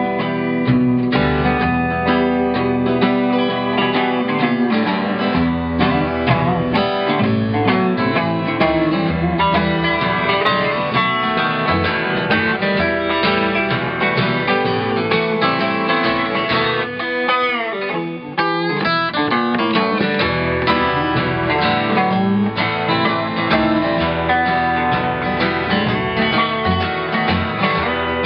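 Instrumental break in a country-style song: acoustic guitar strummed and picked in a steady rhythm, with a few bent notes about two-thirds of the way through.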